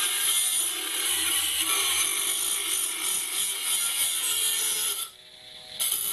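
A small 72 W gear-driven micro rotary tool grinding through thick steel bar with a 75 mm abrasive cut-off disc, a steady harsh hiss. About five seconds in the grinding drops away abruptly as the disc cuts through, leaving the tool running free with a faint whine. Near the end comes one brief last burst of grinding.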